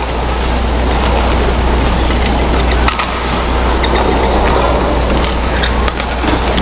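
Badminton rally in an arena: sharp clicks of rackets striking the shuttlecock, the clearest about three seconds apart, over steady crowd noise and a low hum.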